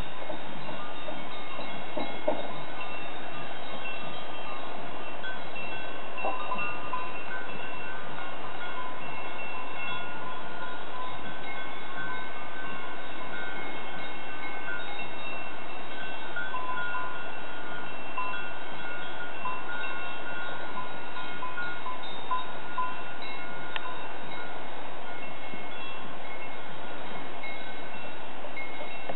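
Many cowbells on grazing cattle ringing irregularly, their tones of different pitches overlapping.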